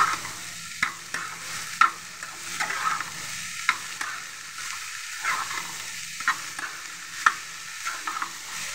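Chopped onions sizzling as they sauté in oil in a pan, stirred with a spatula, with irregular sharp knocks and scrapes of the spatula against the pan.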